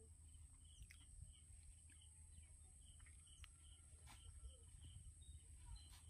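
Near silence: faint rural outdoor ambience, with a soft high chirp repeating two or three times a second and a few faint clicks.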